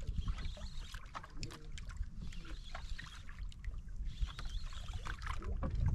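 Water washing and lapping against a small wooden boat's hull, with wind on the microphone and scattered light clicks and splashes.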